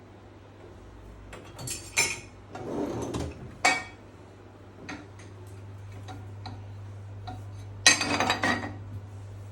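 Metal cutlery clinking and clattering as it is dropped into a dishwasher's cutlery basket: a few clinks about two seconds in, one near four seconds and a bright clatter around eight seconds, over a steady low hum.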